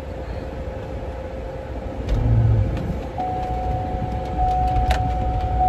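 GMC Yukon Denali running, heard from inside the cabin: a steady low engine rumble with a constant whine, a second higher tone joining from about three seconds in, and a sharp click near the end.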